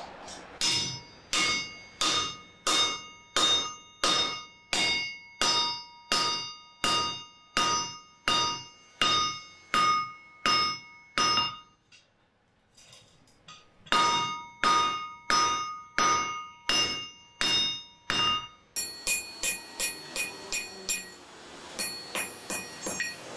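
Hand hammer striking a steel meat-cleaver blade on a steel anvil while forging it, steady ringing blows about one and a half a second. The blows pause for a couple of seconds, then resume for a short run. Background music takes over near the end.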